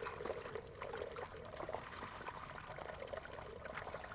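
Water pouring and sloshing in shallow pond water, with many small irregular splashes and trickles.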